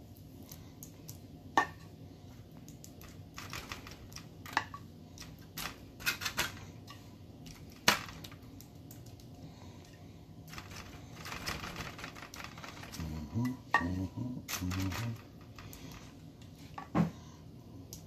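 Scattered sharp clicks and knocks of a basting brush and metal saucepan, with aluminium foil crinkling, as barbecue glaze is brushed onto ribs.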